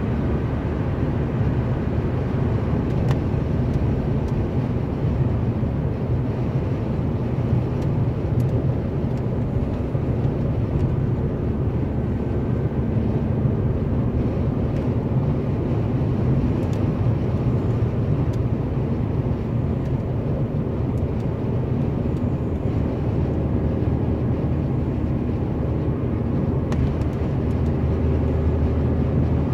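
Steady road and tyre noise with a low engine hum from a car cruising at motorway speed, heard from inside the cabin.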